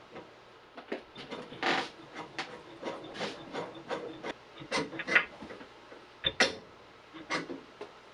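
Hands handling parts during assembly: an irregular string of light knocks and clicks with a few short rubbing scrapes.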